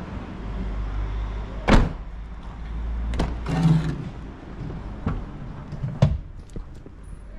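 A car door shutting with one solid thud, then handling and rustling, and two sharp latch clicks as a rear door is opened.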